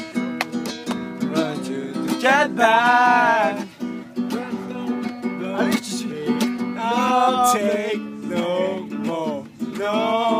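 Acoustic guitar chords strummed steadily, with a man singing over them in a few long, wavering phrases.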